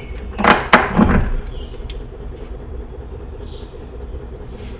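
Metal knocks and clinks as a battery cable and its terminal are handled against the engine's steel mounting bracket: a few loud knocks about half a second to a second in, then light clicks over a steady low hum.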